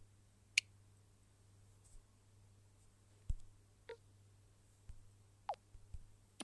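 A few faint, separate clicks and taps spread over several seconds, one of them a short tone falling in pitch, over a low steady hum.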